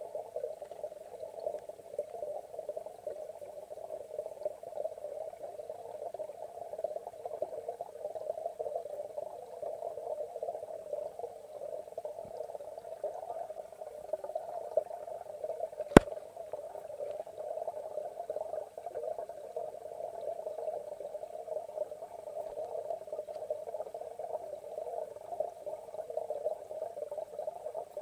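Steady, muffled water noise picked up underwater in a pond, with a single sharp click about halfway through.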